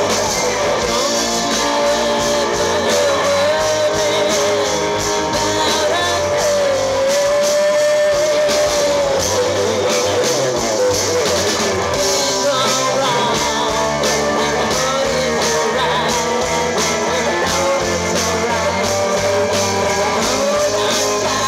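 Live rock band playing: electric guitars, bass guitar and drums, with a woman singing a sustained lead line that bends and slides in pitch.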